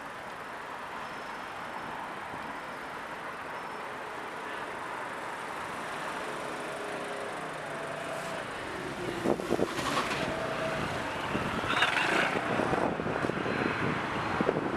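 Urban road traffic: a steady hum of cars passing on the road. It grows louder in the second half as vehicles come closer, with a few knocks and clatters.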